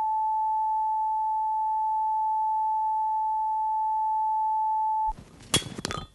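Steady electronic bleep tone at one pitch, cutting off abruptly about five seconds in, followed by a few sharp clicks.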